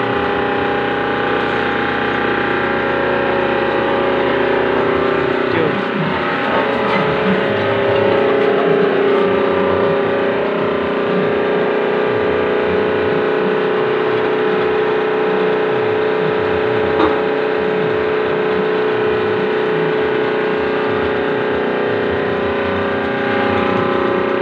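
Bamboo-splitting machine running idle, its 5.5 HP three-phase electric motor and drive giving a steady hum with several steady tones. One sharp click comes about 17 seconds in.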